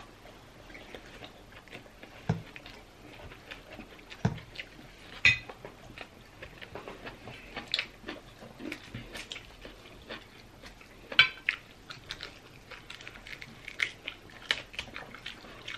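Mealtime sounds at a table: chewing and eating with the hands, with scattered light clicks and knocks from plates and cutlery.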